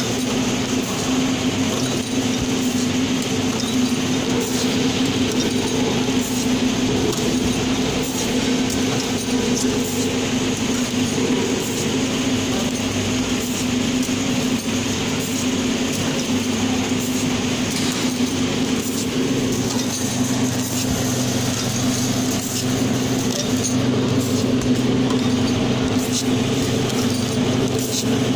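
Vertical three-side-seal sachet packing machine running: a steady mechanical hum with regular ticks as it cycles through its filling and sealing strokes.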